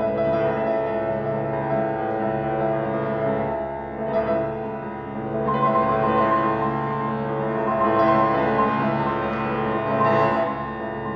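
Grand piano played continuously in a dense texture of many ringing pitches. A brighter high note comes in about five and a half seconds in and sounds again near the end.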